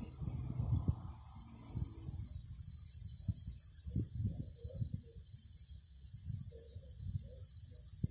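Cicadas singing in a steady, high, hissing chorus that dips briefly about a second in and then holds on. Low, uneven rumbling and knocks sound underneath.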